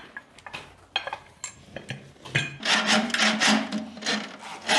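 A few light knocks, then a long stretch of rough scraping and rubbing from about two and a half seconds in: a heavy fabric snake stuffed with sand and rocks being pulled over a concrete floor.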